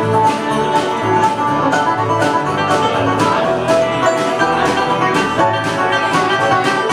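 A live band playing the instrumental close of a song after the last sung line, with picked strings over a steady beat of about two strokes a second.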